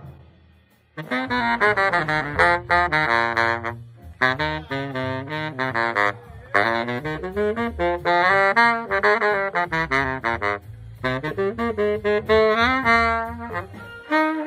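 Baritone saxophone playing quick runs of notes in four phrases with short breaks between them, starting about a second in.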